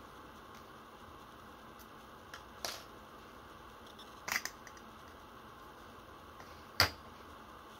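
A few light metallic clicks as the ejector rod housing is worked loose from the barrel of a Tokyo Marui SAA .45 model revolver, including a quick double click, then one sharper knock near the end as a metal part is set down on the wooden desk.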